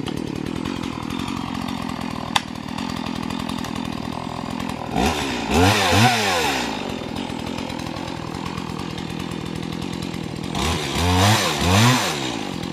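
Stihl chainsaw's two-stroke engine idling, revved in a couple of rising-and-falling blips about five seconds in, then revved repeatedly from about ten seconds in as the bar goes into the tree trunk. The chain has just been refitted the right way round after refusing to cut, and now it is cutting.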